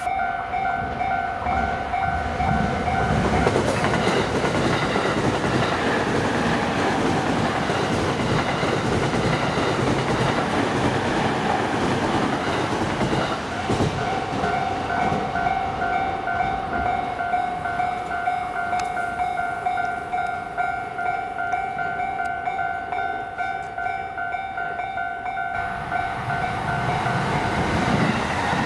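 Japanese railway level-crossing alarm ringing with a steady repeating ding while an electric train passes over the crossing. The train's noise comes up a few seconds in and nearly drowns the bell, then dies away near the end while the alarm keeps ringing.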